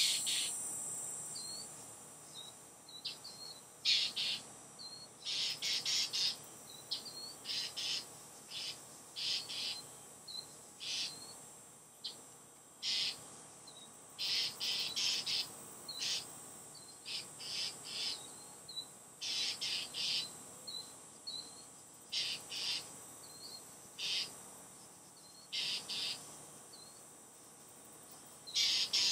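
Northern mockingbirds giving harsh, rasping scold calls at a perched great horned owl, singly and in quick runs of two to four: mobbing alarm calls at a predator. Short high chirps come between the calls, over a steady high hiss.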